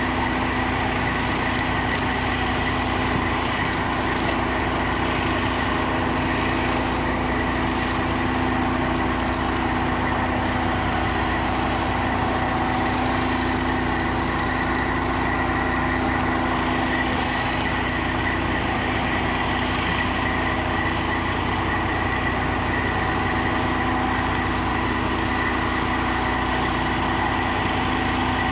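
Fire truck engine running steadily, with a steady high whine over its drone.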